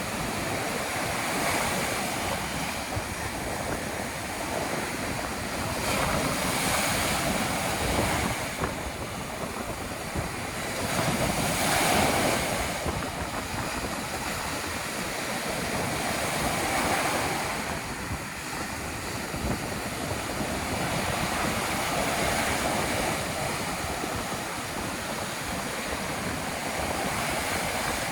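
Ocean surf in stormy wind, waves washing in and swelling in level every few seconds, the biggest about halfway through, with wind blowing across the microphone.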